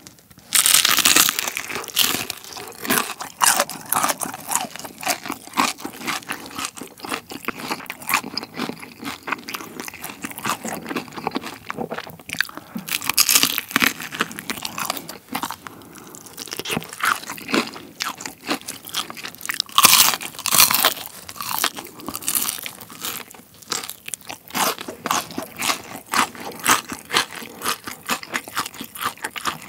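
Close-up crunching and chewing of crispy honey-glazed fried chicken: a loud crunchy bite about half a second in, then steady chewing crunches with more loud bites around the middle.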